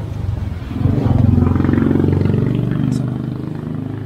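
A motor vehicle passing close by: its engine grows louder about a second in and then fades away.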